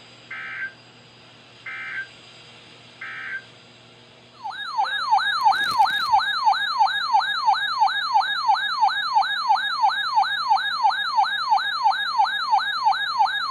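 Emergency Alert System header: three short, buzzy bursts of SAME data tones about 1.4 seconds apart. About four and a half seconds in, a loud alert siren starts as the attention signal, a fast tone sweeping up and down about three times a second.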